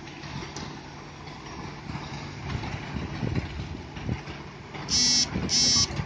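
Concrete mixer trucks' diesel engines running steadily while unloading concrete. Near the end a truck gives two loud short beeps, about half a second each.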